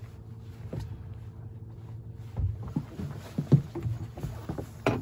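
Electric trolling motor humming steadily under a small fibreglass boat, with a faint whine that stops about halfway. Then comes a run of irregular knocks and thumps on the boat, two of them sharp and loud, one about three and a half seconds in and one near the end.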